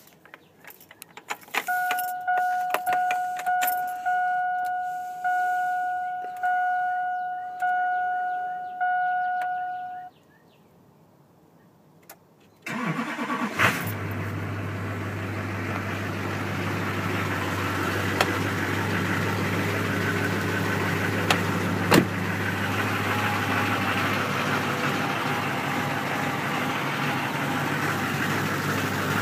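Key clicks and rattles, then a dashboard warning chime sounding about eight times in an even rhythm. After a short silent pause, the Duramax 6.6-litre V8 turbodiesel cranks briefly and catches on a cold start, then settles into a steady idle with a deep low hum.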